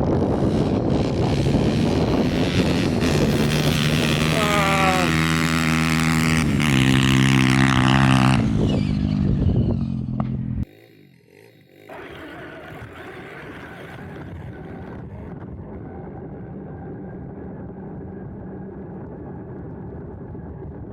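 Pit bike engine running hard, its pitch climbing as it revs up about four seconds in, then holding steady. The sound cuts off suddenly past the middle, and a quieter, steady engine drone follows.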